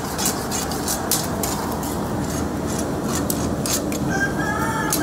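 Long metal spatulas clicking and scraping against a steel karahi wok as chicken is stir-fried over a gas flame, over a steady sizzling hiss. Near the end a rooster crows.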